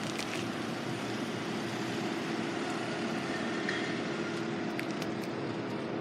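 Steady outdoor background hum: a constant drone over an even wash of noise, with a few faint ticks.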